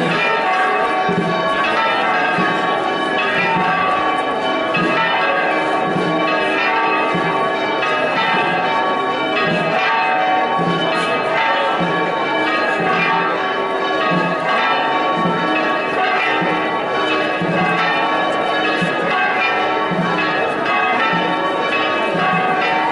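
Church bells pealing continuously, many bell tones overlapping, with a lower bell striking at a steady rhythm about every three-quarters of a second.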